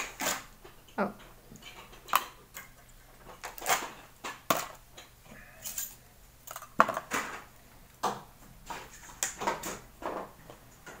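A table knife scraping margarine out of a plastic tub and tapping against it: a run of irregular short scrapes and clicks, the sharpest about seven seconds in.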